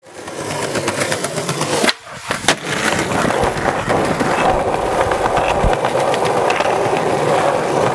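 Skateboard wheels rolling over paving slabs, a steady rumble with a pair of sharp clacks about two seconds in.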